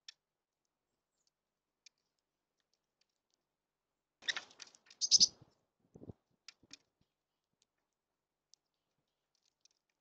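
Mourning doves landing and feeding at a seed feeder: a short flurry of sharp clicks and rattling taps about four to five seconds in, then a dull thump and a couple of lighter clicks.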